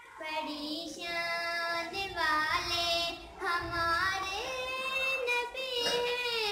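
A young girl singing solo, holding long notes that slide between pitches.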